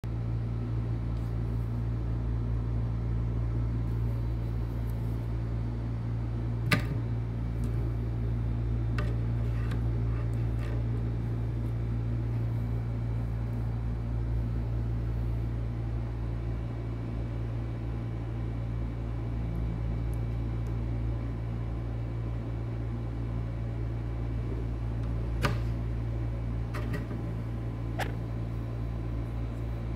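A steady low mechanical hum, like a household appliance running, with a few sharp clicks or taps about seven seconds in and twice near the end.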